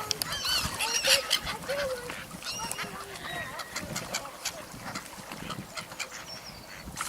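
Waterfowl calling as they crowd in to be fed: many short, overlapping calls, some rising and some falling in pitch, with scattered sharp clicks among them.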